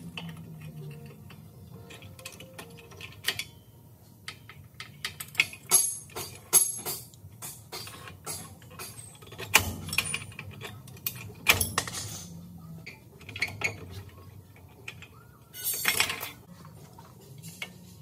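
Steel clinking and clanking as a long pry bar levers truck drum-brake shoes and their return springs off the brake spider: a string of sharp metallic knocks, a few of them loud, and a short scraping rasp near the end.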